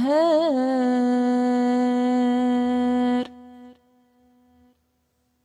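A woman's melodic Quran recitation: after a short ornamented turn she holds one long steady note, the drawn-out final vowel of 'al-Qahhar'. It cuts off a little after three seconds in, leaving a faint echo.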